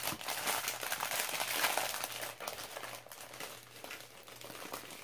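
Plastic film covering a diamond painting canvas crinkling as the canvas is handled and rolled up, busiest for the first couple of seconds and thinning out after about three seconds.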